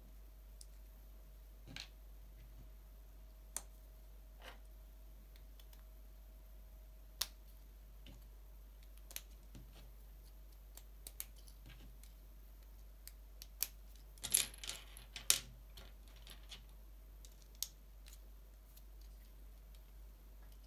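Small plastic LEGO bricks and wheels clicking as they are snapped together by hand: scattered single clicks, with a quick flurry of clicks and rattles about two-thirds of the way through.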